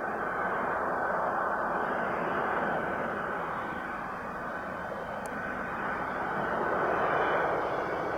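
A Dassault Falcon 900 business jet landing, its three turbofan engines making a steady rushing jet noise with a high, even whine over it, growing a little louder near the end.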